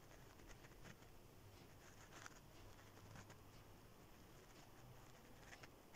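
Near silence, with a few faint soft rustles and taps of dough strips being rolled up by hand on a stone counter.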